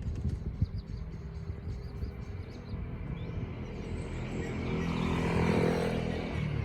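A motor engine passing by, growing louder to a peak about five and a half seconds in, then easing off slightly.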